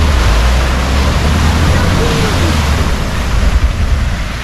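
Peugeot Boxer panel van ploughing through deep floodwater at a ford, its bow wave rushing and splashing loudly, with a low rumble underneath. The splashing eases a little near the end as the van drives out of the water.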